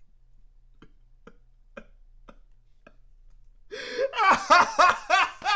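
A few faint short blips about twice a second, then about four seconds in a loud, high-pitched voice cries out with rapidly wavering pitch, like a squeal or wail.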